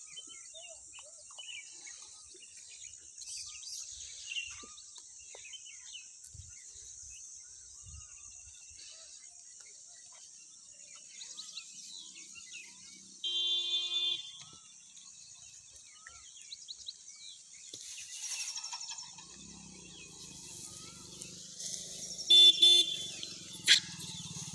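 Roadside ambience: a steady high insect drone with scattered bird chirps. About halfway through, a vehicle horn sounds for about a second; near the end a motor vehicle draws close and gives a louder, stuttering horn blast, the loudest sound here.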